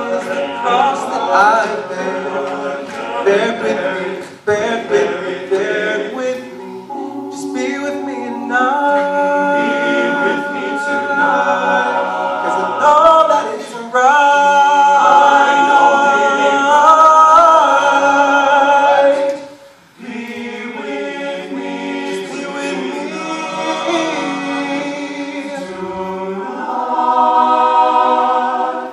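Men's a cappella group singing held chords, loudest a little past the middle, dropping out briefly about twenty seconds in, then building again near the end.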